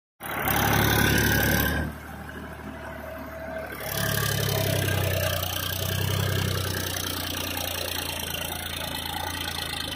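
Diesel tractor engines running, loud for the first two seconds, quieter for a moment, then loud and steady again from about four seconds in.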